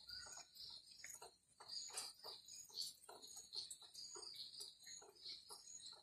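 Birds chirping faintly in many short, separate calls, several a second, over a steady high-pitched background hum.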